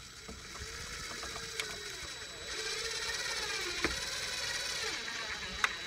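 Cordless drill running steadily as it drives a screw into a fish finder mount on a boat's dash, its motor getting louder about halfway through.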